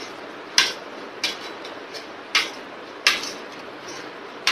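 Steel spoon clinking and scraping against a ceramic plate while scooping up rice, with four sharp clinks about a second apart.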